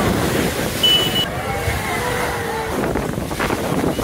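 Heavy surf crashing against and over a concrete sea wall, with spray washing across the promenade and wind buffeting the microphone. Faint crowd voices sound under it, and a brief high whistle comes about a second in.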